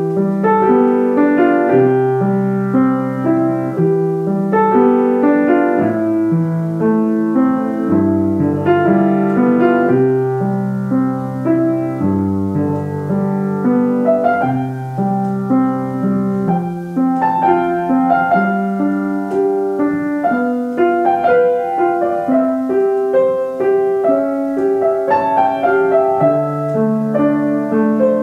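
Piano music: a melody over chords and low bass notes, played steadily throughout.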